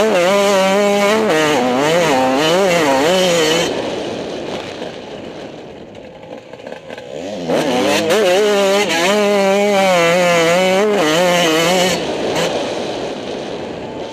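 Motocross dirt bike engine running under hard throttle, its pitch rising and falling rapidly as the throttle is worked. It eases off about four seconds in, opens up again for a steep climb, and drops off again near the end.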